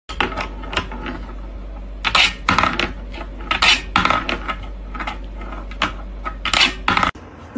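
Small ball in a wooden-dish-and-wire marble desk toy clicking and clinking as a cat paws at it: irregular sharp clicks and rattles, some louder than others, over a low steady hum.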